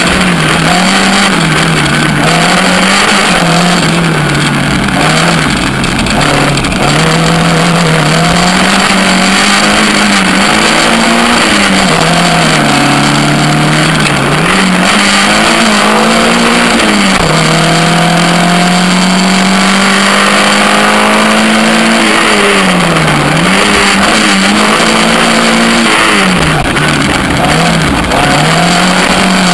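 Suzuki Swift GTi twin-cam four-cylinder engine in a Corsa-bodied sprint car, driven hard and revving up and down through gear changes and lifts. It holds one long steady pull past the middle and drops sharply several times near the end under braking and downshifts. Heavy wind and road roar come through on the low front-mounted microphone.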